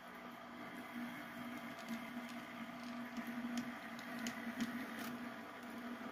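An HO scale model locomotive runs with a steady hum while it shoves a string of model boxcars. A few sharp clicks come from the wheels on the track around the middle.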